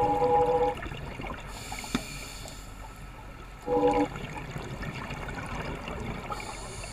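Scuba diver's exhaled bubbles crackling and gurgling underwater. A steady humming tone cuts off just under a second in and comes back briefly about four seconds in.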